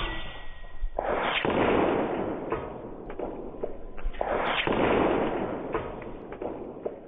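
Two shots from a .30 calibre Skout Epoch PCP air rifle, about three and a half seconds apart. Each is a sharp crack trailing off in about a second and a half of hissing noise, and the sound is dull and muffled, with no treble.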